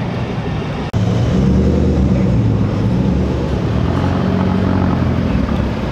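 A car's engine as it drives off, then after an abrupt cut about a second in, an Alfa Romeo 4C's turbocharged four-cylinder engine running steadily and louder.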